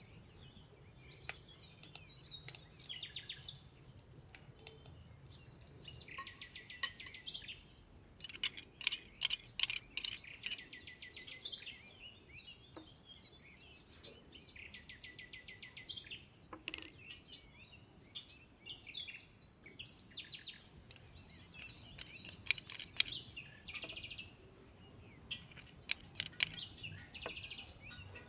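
Small birds chirping and trilling again and again, with a few light clinks of a metal spoon against a ceramic bowl.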